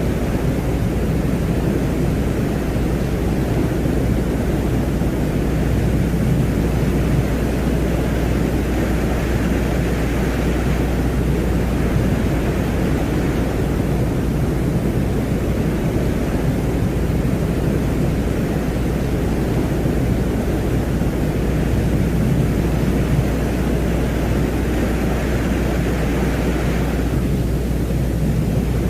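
Ambient noise track presented as the sound of Venus: a steady, deep rumble like distant wind or a jet. A fainter hiss higher up swells through the middle and drops away near the end.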